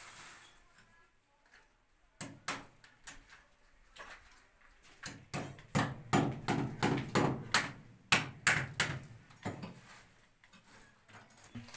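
A series of sharp knocks on a brick wall from hand work around the conduit, a few scattered ones first and then a quick run of about three or four a second before it stops.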